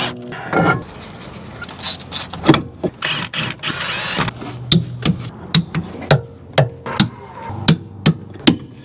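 Hand tools working on metal wheel-hub and suspension parts during reassembly: a run of sharp clicks and knocks, coming about two a second over the second half.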